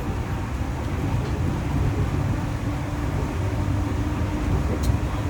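Interior running noise of a Saitama New Shuttle 1050 series rubber-tyred guideway train under thyristor phase control: a steady low rumble with a faint hum over it. There is a single short click near the end.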